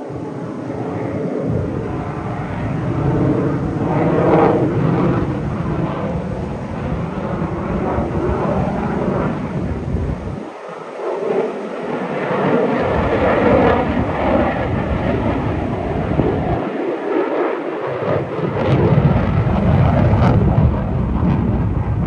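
Fighter jet engine roaring as the jet manoeuvres overhead, a loud, continuous rumble that swells and ebbs with the pass and is loudest near the end.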